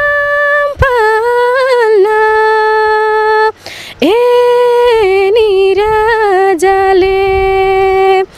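A young woman singing a Nepali folk song unaccompanied, holding long notes with small ornamental turns between them. She breaks off for a breath about three and a half seconds in.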